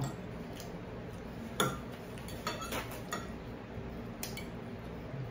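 A fork clicking against a ceramic plate a few times while eating, the sharpest click about one and a half seconds in, over a steady low hum.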